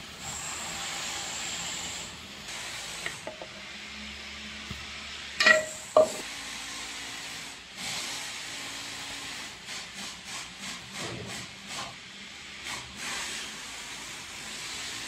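A flower pancake sizzling in oil in a frying pan, pressed with a wooden spatula. About five and a half seconds in come two sharp knocks. Later a cleaver cuts through the pancake onto a wooden chopping board in a run of short strokes, about two a second.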